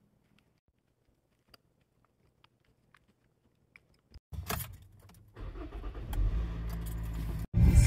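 A few faint clicks, then about four seconds in a loud clatter inside a car, followed by the car's engine starting and running in a steady low rumble, heard from inside the cabin; it cuts off abruptly near the end.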